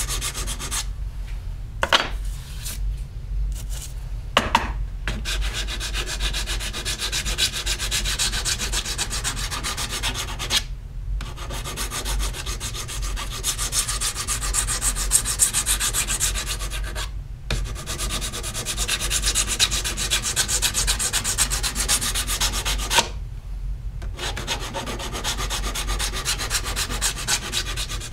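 Hand scrubbing of a copper printmaking plate with an abrasive, rapid back-and-forth strokes taking imperfections off the surface. The rubbing runs steadily, with a few brief pauses.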